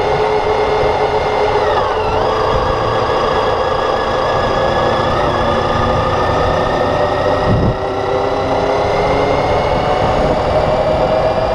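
Motorcycle engine running under way, over a steady rushing noise. The engine note drops sharply about two seconds in, then climbs slowly through the second half. There is a brief low thump just under eight seconds in.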